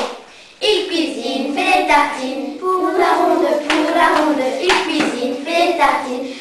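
A group of children singing a French action song together in unison, with sharp hand claps about once a second. The singing drops out briefly at the start, then comes back in.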